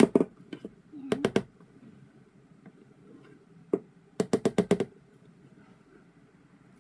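Spatula knocking against a stainless steel mixing bowl while whipped egg whites are stirred: short runs of quick taps, a few about a second in and a faster run of about seven just past the middle.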